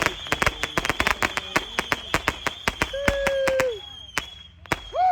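Consumer fireworks going off in a rapid run of sharp cracks, several a second, that thins out to a few scattered pops about four seconds in.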